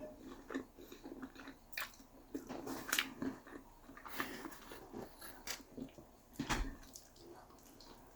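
A person chewing food close to the microphone, with irregular small clicks a few times a second.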